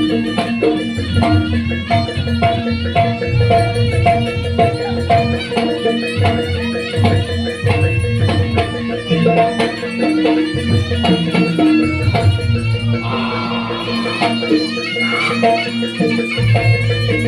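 Live Javanese jaranan campursari band music: a melody line over regularly struck drums and a deep, pulsing bass.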